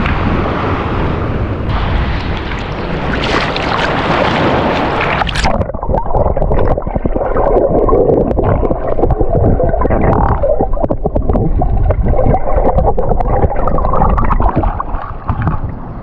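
Sea water and wind rushing over the microphone. About five seconds in, the sound suddenly turns muffled, with irregular bubbling gurgles, as when the microphone goes into the water.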